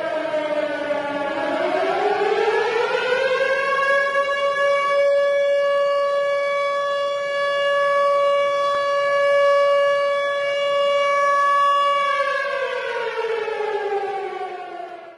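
Tornado warning siren wailing: the pitch sinks, winds up over a couple of seconds to a steady wail held for about eight seconds, then winds down and cuts off suddenly at the end.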